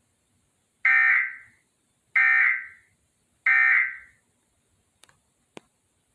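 Emergency Alert System end-of-message (EOM) data bursts: three short, harsh digital data tones about 1.3 s apart, each trailing off with an echo, marking the close of the alert. Two faint clicks follow near the end.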